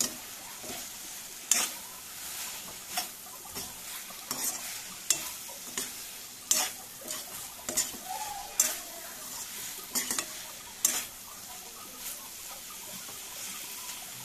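A steel slotted spoon scraping and knocking against a kadai as fried bitter gourd slices are stirred through a frying masala, over a faint sizzle. The knocks come irregularly, about one or two a second, and thin out near the end.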